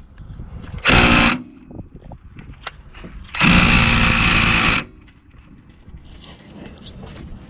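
Ryobi P263 brushed-motor 3/8-inch cordless impact wrench running in two bursts. The first, about a second in, is short; the second, a couple of seconds later, lasts about a second and a half.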